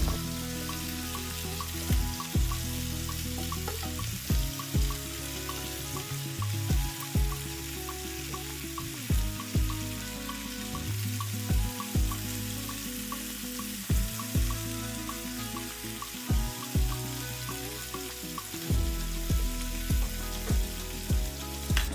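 Pork frying in oil in a pan with a steady sizzle, while sliced vegetables are stirred in with tongs. Background music with a regular beat plays over it.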